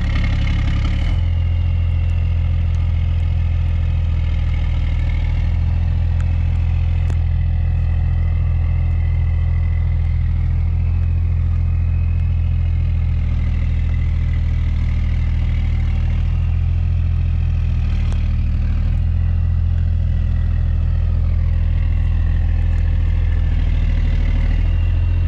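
Motor vehicle engine running steadily, a loud, low, even hum.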